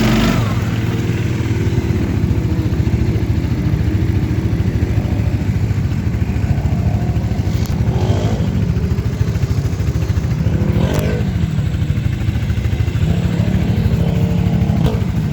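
ATV engine running steadily with a rapid firing pulse, revved up and back down briefly twice along the way.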